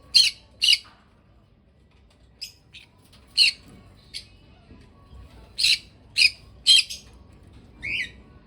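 Small pet parrot squawking: about ten short, high calls, some in quick runs of two or three, with a lower, falling call near the end.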